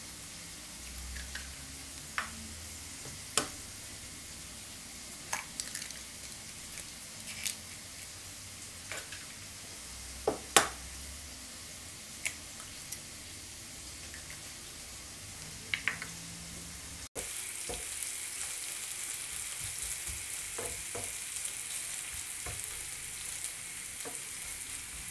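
Eggs cracked by hand into a drinking glass: a string of sharp, separate cracks and taps of shell, the loudest a double crack about ten seconds in. About 17 s in it changes to a steady sizzle of chopped ham and onion frying in oil in a frying pan, with a few soft knocks of a wooden spatula.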